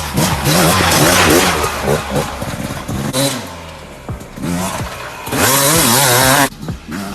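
An off-road vehicle's engine revving hard, its pitch rising and falling over and over as the throttle is worked. A loud rushing noise rides over it about a second in and again near the end, where it cuts off suddenly.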